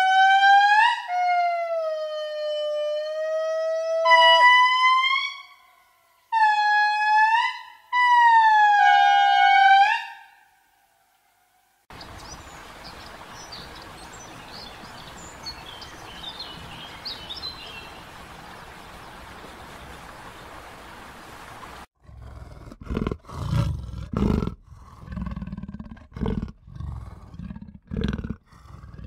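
Three long, high wailing animal calls that slide and bend in pitch. Then a stretch of outdoor ambience with faint bird chirps. Then a series of deep, rhythmic grunts from a large animal.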